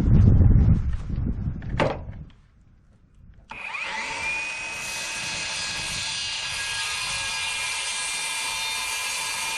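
Knocks and handling noise, then a moment of quiet, before an electric power tool starts about three and a half seconds in, its motor rising briefly in pitch as it spins up and then running steadily.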